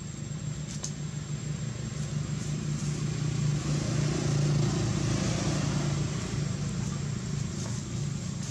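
A motor vehicle's engine hum, growing louder to a peak around the middle and then easing off a little.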